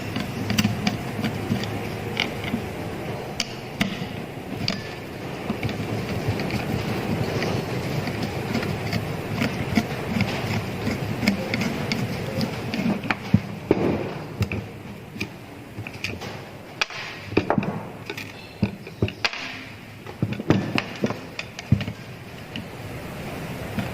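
Irregular clicks, taps and knocks of hand tools and small metal parts being handled while an angle grinder's front gear housing is taken apart, over a steady background noise. The knocks come thicker and louder in the second half.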